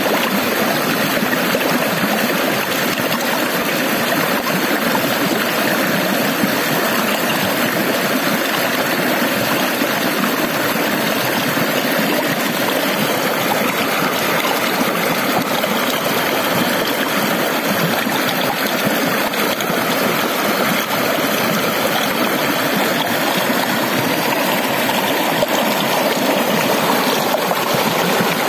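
Shallow stream rushing over rocks, a steady, unbroken sound of running water.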